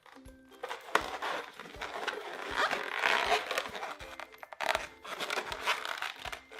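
Latex twisting balloon rubbing and squeaking against the fingers as a knot is tied in it, with irregular crinkling and scraping and a few sharp clicks, over faint background music.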